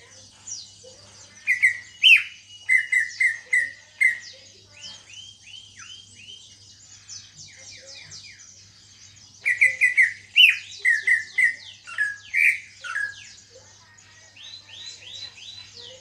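Caged male greater green leafbird (cucak ijo) singing. Two loud bursts of quick chattering notes come about a second and a half in and again near ten seconds, with rapid high slurred notes between them and a run of falling notes near the end. It is a young male just coming into full song after its moult.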